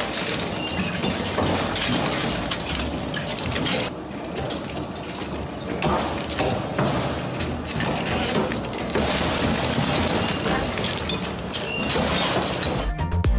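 Industrial shredder crushing hard objects: a continuous dense crunching with many sharp cracks and shattering. Electronic dance music starts near the end.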